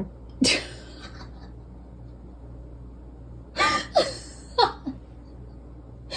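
A woman laughing: a short breathy burst near the start, then a few quick laughs falling in pitch about three and a half seconds in.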